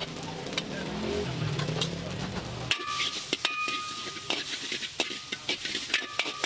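Flat rice noodles sizzling in a hot wok. A low hum cuts off after a few seconds, and then a metal spatula scrapes and clanks against the wok in quick, irregular strokes as the noodles are stir-fried.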